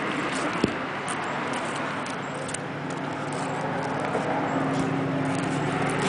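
Sulcata tortoise biting a raw corn cob: a few sharp cracks of kernels popping under its jaws, over a steady low engine-like hum.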